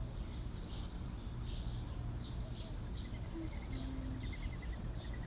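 Outdoor animal calls: a rapid series of short, high chirps, a few brief lower calls, and a faint fast trill starting a little past halfway, over a steady low rumble.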